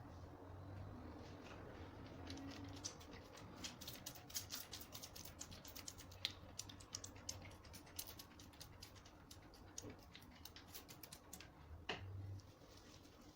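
Faint, rapid, irregular clicking and crackling, densest through the middle, with one sharper click near the end.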